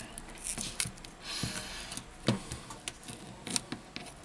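Small clicks, taps and rustles of a Samsung Galaxy J6 Plus's detached display module and frame being handled, with a few sharper clicks and a brief hissing rustle about a second in.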